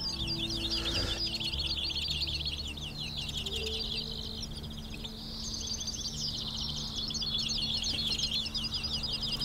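Decoy European goldfinches and greenfinches singing without pause, a dense, rapid twittering, as they call wild finches in to the trap.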